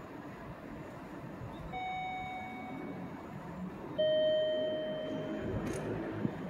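Two-note ding-dong chime on a railway platform, a higher note and then a louder, lower one about two seconds later, each ringing out over the steady station background noise. A small tap comes near the end.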